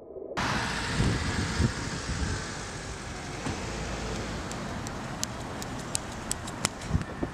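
Steady outdoor city street noise, a rush of traffic and wind. In the second half, a quickening series of sharp slaps: bare feet running on asphalt, coming closer.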